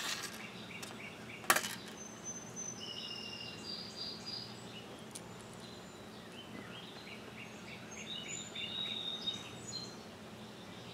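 Small birds chirping on and off in the background over faint outdoor noise. Two sharp clicks, one at the very start and one about a second and a half in, come from small metal parts being handled.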